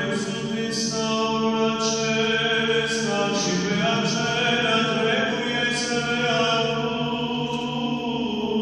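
An Orthodox deacon chanting the Gospel reading in Romanian: one male voice intoning on long, nearly level notes with small steps in pitch, sharp 's' sounds cutting in about once a second, carried through a handheld microphone.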